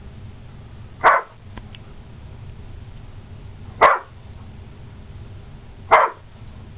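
A large dog barking three times, single short barks spaced about two to three seconds apart.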